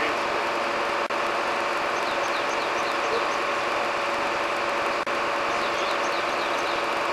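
Engine of a mobile crane truck running steadily, a constant drone with one held tone. Over it a small bird sings the same short phrase of repeated high chirps three times.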